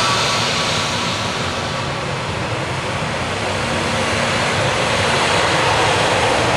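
Airbus A321neo's jet engines running at low power as the airliner rolls along the runway: a steady roar with a high whine that fades within the first second.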